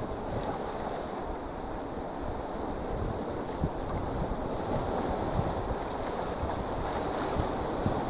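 Sea surf breaking and washing over shoreline rocks in a steady wash, with wind buffeting the microphone.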